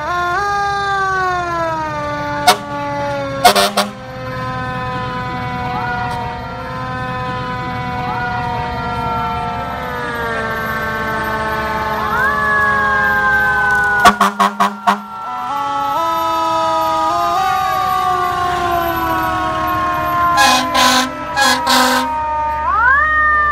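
Sirens on passing fire trucks, several pitches at once sliding slowly down as they wind down, then rising sharply again about halfway through and near the end. Short, loud horn blasts cut in several times, in quick clusters about a third of the way in, at the middle and near the end.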